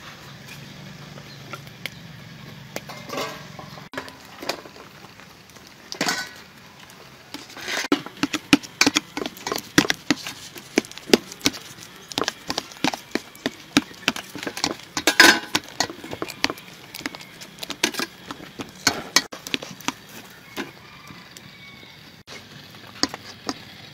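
Block of cheese being grated by hand on a metal grater over a steel tray: quick, irregular scraping strokes and clicks. They start about eight seconds in and stop shortly before the end, after a low hum in the first few seconds.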